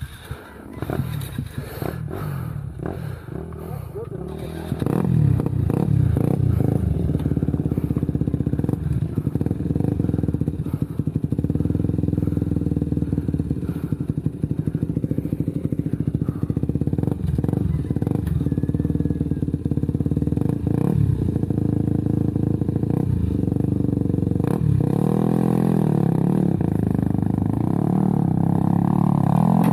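Motorcycle engine running on a trail ride. It is moderate at first and grows louder about five seconds in, and its pitch rises and falls as it is revved, most clearly near the end.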